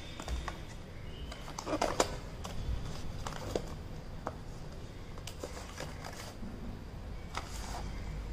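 Paperboard packaging of a tablet box being handled: light rustles, taps and clicks as the cardboard inserts are slid and pressed into the box, with a sharper click about two seconds in, over a low steady background hum.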